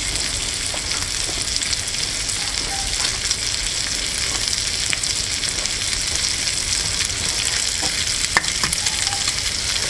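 Bacon frying in a small pot over a wood-burning camp stove: a steady sizzling hiss with light crackles, and one sharp pop a little over eight seconds in.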